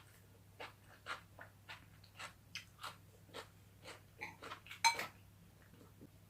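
Crunching on chicken bones while chewing: a run of short crisp crunches, about two or three a second, with the loudest just before five seconds in, then only faint ones.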